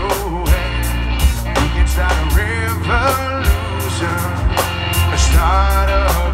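Rock band playing live: distorted electric guitars, bass and a drum kit keeping a steady beat, with a man singing over it.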